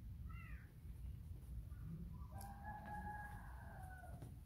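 Two animal calls over a low background rumble: a short cry that rises and falls about half a second in, then a longer held call starting about two seconds in and lasting nearly two seconds, sinking a little at the end.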